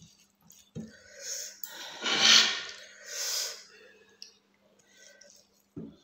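Three loud, breathy puffs of air, like sharp breaths or sniffs, close on a clip-on microphone between mouthfuls, the middle one the loudest, with a soft thump just before them.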